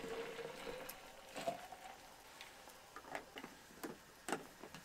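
Hot water poured from a pot into a water bottle, the pitch rising as the bottle fills and stopping about a second and a half in. Then several light clicks and taps as the cap is handled and screwed on.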